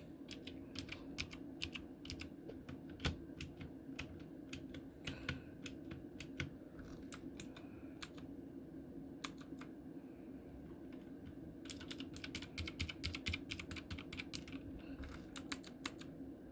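Typing on an RK61 60% mechanical keyboard with clicky Gateron Blue switches: irregular keystroke clicks, with a fast flurry of keys about twelve seconds in and a few short pauses between runs.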